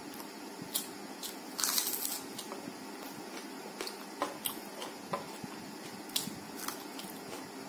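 Close-miked mouth sounds of a person eating: scattered small wet clicks and chewing, with one louder crunch about two seconds in.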